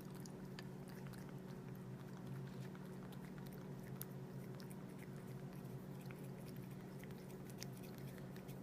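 A cat licking and chewing, faint and clicky, over a steady low hum.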